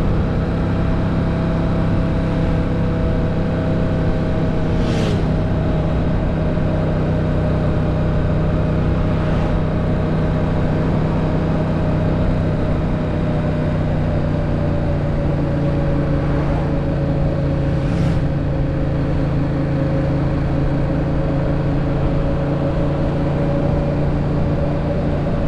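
Yamaha MT-07's 689 cc parallel-twin engine running at a steady cruise, its note holding nearly constant and easing slightly lower past the middle, with road and wind noise underneath.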